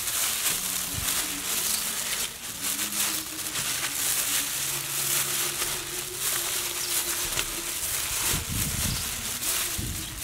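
A plastic bag worn over a hand crinkles and rustles as it kneads and squeezes floured, sauced pork ribs on a metal tray, in a steady run of small crackles.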